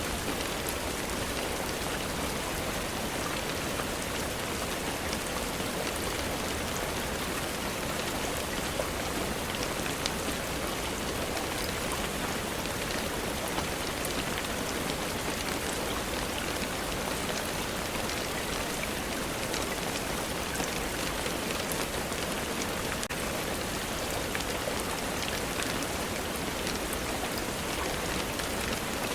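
Steady rainfall, an even hiss of rain on a surface with scattered faint drop ticks.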